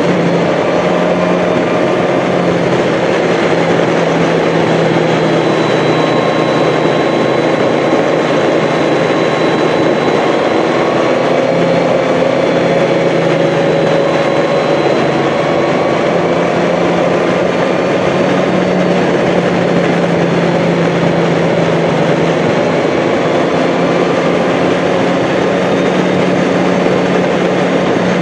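Honda Gold Wing GL1800's flat-six engine running at a steady cruise under a constant rush of wind and road noise, heard from a camera on the moving motorcycle. The engine's pitch drifts slowly up and down as the road speed changes.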